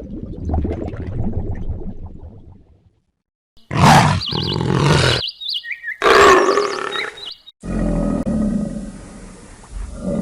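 Animal calls from several short recordings spliced one after another, with sudden cuts and a brief silence about three seconds in.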